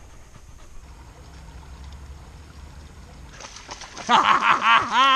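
Dog splashing as it swims in a river. About four seconds in, loud, wavering, high-pitched whines start up and repeat.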